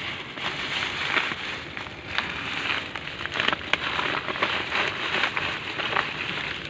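Rustling and crisp, irregular crackling of leaves as a bunch of cut green bamboo leaves is handled and pushed into a sack over dry bamboo leaf litter.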